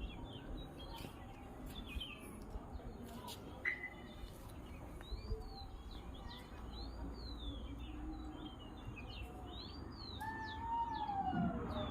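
House sparrows chirping: many short chirps repeated throughout, with a longer falling call near the end.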